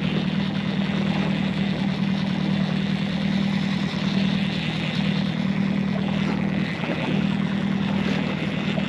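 A boat's outboard motor running steadily with a constant low drone.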